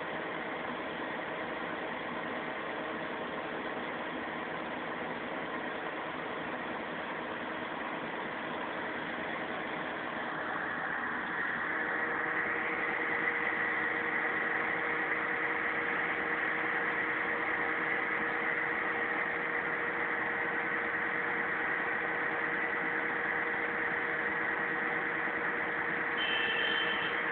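Kato crane's diesel engine running steadily, heard from inside the operator's cab. It grows louder about eleven seconds in, with a higher hum joining, and a short high-pitched tone sounds near the end.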